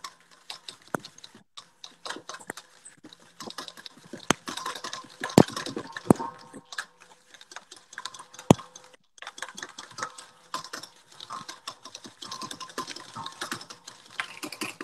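Wire whisk beating in a stainless steel bowl, a rapid run of small clicks and scrapes, as melted butter is trickled into egg yolks to emulsify a hollandaise sauce. A few sharper knocks come around the middle.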